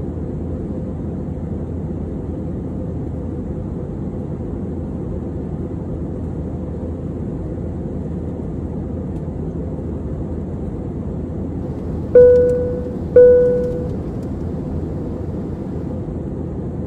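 Steady engine and air noise in the cabin of an Airbus A320-family airliner in climb, with two chimes about a second apart near the end, each a single tone fading away. The double chime is the fasten-seatbelt sign switched quickly off and back on: the pilots' signal that the cabin crew may start their service.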